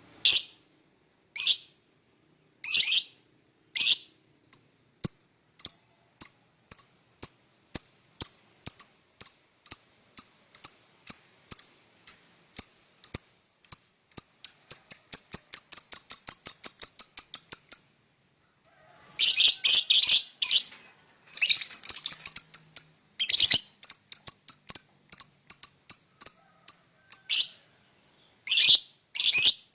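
Lovebird chirping in a long series of sharp, high chirps. They quicken into a rapid trill for a few seconds past the middle, break off briefly, then resume as denser, harsher chirping.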